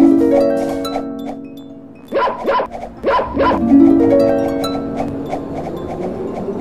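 Background music of rising plucked harp-like runs, with a cartoon dog barking four times in two quick pairs about two to three and a half seconds in.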